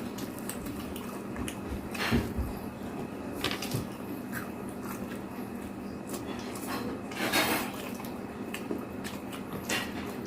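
Eating at close range: scattered clinks and scrapes of cutlery on dishes, a few of them louder, with soft food handling noises between.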